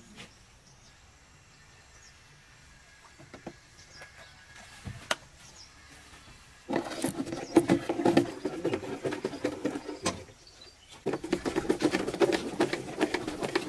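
A long stick stirring paint inside a plastic jerry can, giving rapid knocking and scraping strokes in two bursts of about three seconds each, with a single sharp click earlier.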